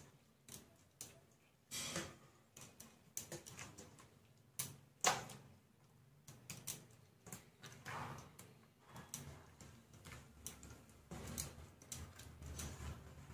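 A hand mixing hilsa fish pieces into a thick curd, poppy-seed and mustard paste in a steel bowl: soft wet smearing with irregular sharp clicks against the bowl, the loudest about five seconds in.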